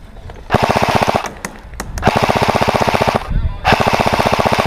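Airsoft gun firing on full auto close by: three long bursts of rapid, evenly spaced shots, about fifteen a second, with short pauses between them.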